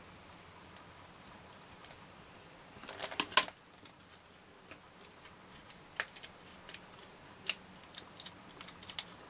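Light handling of a die-cut cardstock piece on a grooved scoring board: a brief crackly rustle of the card being picked up and turned over about three seconds in, the loudest sound, then a few short light clicks and scratches of a scoring tool against the board.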